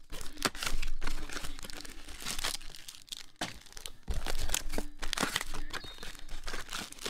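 Plastic and foil wrappers crinkling and tearing in irregular bursts, with small clicks: trading-card blaster boxes and packs being ripped open.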